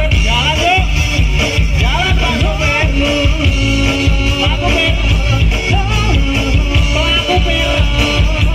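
Loud music with a heavy, pulsing bass and a wavering lead melody, played through a large truck-mounted 'sound horeg' parade sound system.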